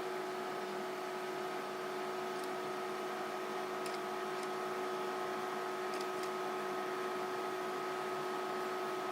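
Panasonic NN-GD392S microwave oven running with a steady hum, with a few faint ticks at about two and a half, four and six seconds in.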